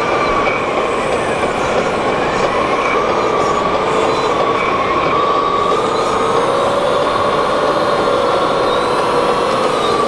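Whine of a radio-controlled model excavator's hydraulic pump and electric motors: a steady pair of tones that drift slowly up and down in pitch over a hiss of mechanical noise.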